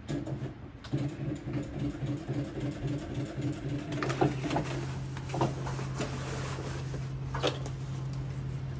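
Sailmaker's sewing machine stitching a patch onto the torn canvas of a boat's bimini. Its motor hum pulses rapidly at about four stitches a second for a few seconds, then runs steadily, with a few clicks of the work being handled.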